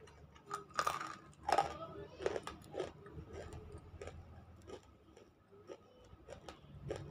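Close-up chewing of a crunchy chunk of half-roasted, smoked nakumatt clay: a run of crisp crackles, loudest in the first three seconds, then fainter and sparser.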